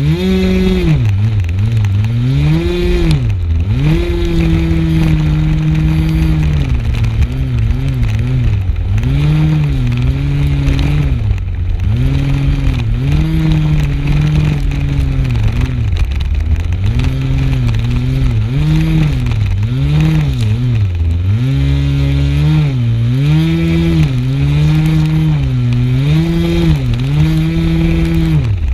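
Super Tigre G51 single-cylinder two-stroke glow engine on an RC model plane running at high revs, its pitch dipping and rising again every second or two as the throttle is worked. It is heard loud and close from a camera mounted on the plane.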